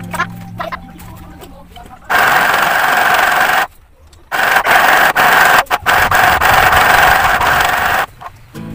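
Mini sewing machine running in two spells, a steady buzz from its small motor and needle: about a second and a half, a sudden half-second stop, then about four seconds more before it cuts off.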